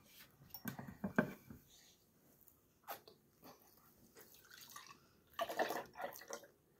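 Canned milk tea being poured from an aluminum can into a glass tumbler, with liquid splashing into the glass. It grows louder about five seconds in, after a few light clicks and knocks.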